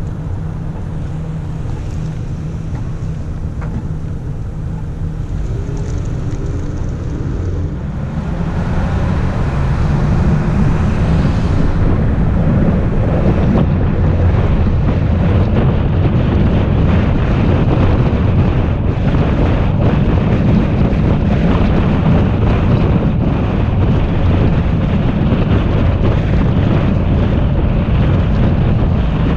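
Car waiting at a traffic light with a low steady hum, then pulling away about eight seconds in; tyre noise on the concrete road and wind on the microphone build up and hold steady as it drives.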